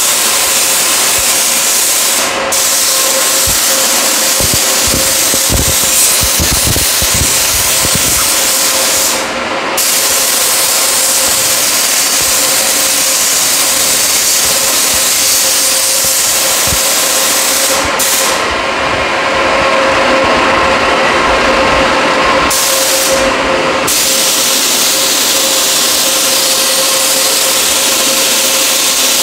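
Compressed-air paint spray gun hissing steadily as it sprays engine paint, cutting out briefly four times as the trigger is let go, over the steady hum of a spray-booth fan.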